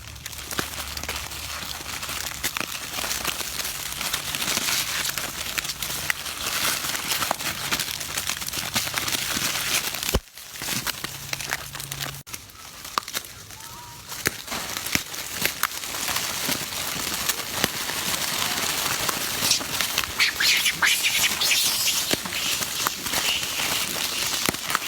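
Continuous crinkling and rustling made up of many small crackles, with short animal calls over it, mostly in the second half. The sound drops out briefly about ten seconds in.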